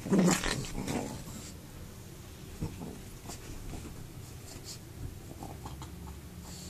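Pug growling briefly in the first second, then soft scratchy rustling and scuffling of its paws on a fleece blanket as it moves about.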